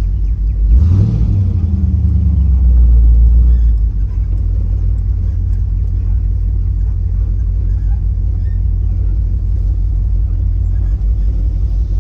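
Car engine and drivetrain giving a low, steady drone while the car creeps along at low speed. The engine revs up briefly about a second in and eases off again around four seconds.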